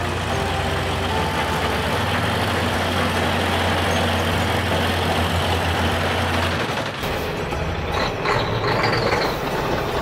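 Heavy construction-vehicle engine running steadily, used as the sound effect for an animated bulldozer driving. The low drone drops away about seven seconds in, leaving a lighter mechanical noise.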